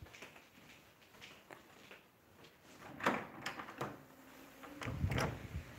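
A door being opened on the way outside: a few knocks about three seconds in, then a louder rumbling rattle near the end, with scattered small clicks of the phone being handled.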